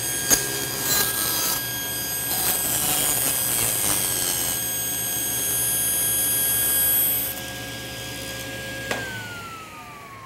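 Table saw ripping a wenge blank into a 1/16-inch-thin strip: the rasp of the cut over the motor's steady whine for about seven seconds. About nine seconds in there is a click, and the whine then falls steadily in pitch as the saw is switched off and the blade coasts down.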